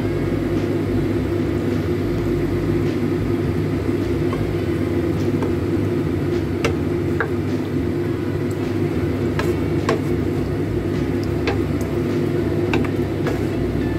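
Pork ribs simmering in sauce in a frying pan: a steady rumbling bubbling with scattered small pops and clicks.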